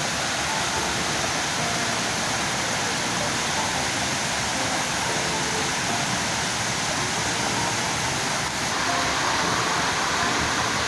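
Waterfall: a steady rush of falling water, a little louder from about nine seconds in.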